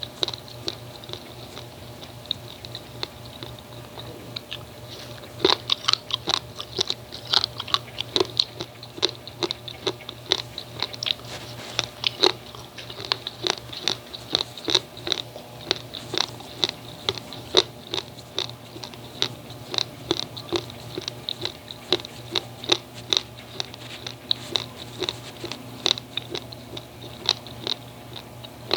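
Raw, uncooked basmati rice grains being chewed close to the microphone: sharp, crisp cracks as the dry grains break between the teeth. The cracks are sparse at first and come a few a second from about five seconds in.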